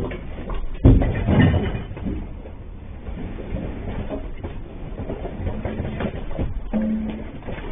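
Street and traffic noise picked up by a security camera's microphone, with a loud clatter of knocks about a second in and scattered knocks after, and a brief steady tone near the end.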